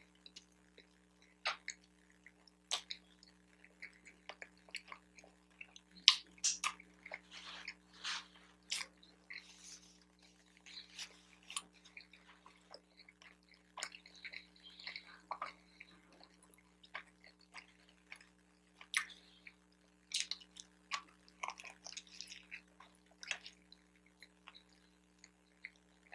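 Close-miked chewing of an everything bagel sandwich with cream cheese: irregular wet smacks and clicks of the mouth, coming in clusters with short pauses between.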